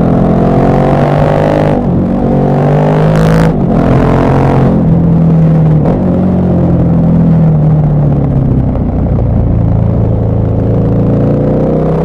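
KTM 1190 Adventure R's V-twin engine accelerating, its pitch climbing and breaking at two gear changes in the first four seconds, then easing off and picking up again near the end.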